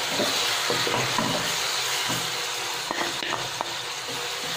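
Chopped onions sizzling in hot oil in a kadhai, stirred with a spatula that scrapes and taps against the pan now and then. The onions are being fried towards golden.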